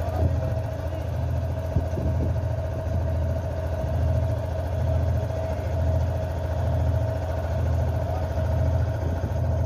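A boat's engine running at idle: a steady low drone that swells gently about once a second, with a steady whine above it.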